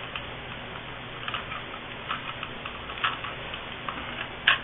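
Scattered small plastic clicks and taps from plugging a lamp into a newly installed recliner outlet, with one sharper click near the end.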